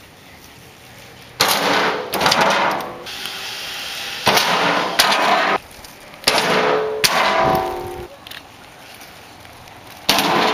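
Kid's bike wheels banging onto hollow wooden jump ramps: three pairs of loud clattering impacts, takeoff then landing about half a second apart, each ringing on for most of a second, and one more bang near the end.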